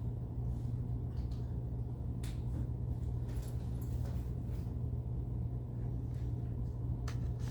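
Steady low hum and background room noise, with a few faint clicks about two seconds in and near the end.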